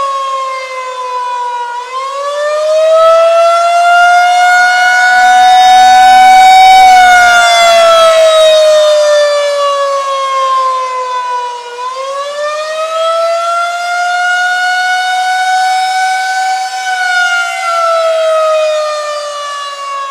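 Federal Signal 2001 rotating electromechanical tornado siren sounding on a test. It gives a steady wail whose pitch slowly falls and rises again about every ten seconds. It swells loudest as the rotating horn sweeps toward the microphone.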